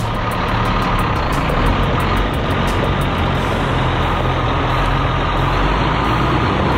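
Kenworth water truck's diesel engine running steadily.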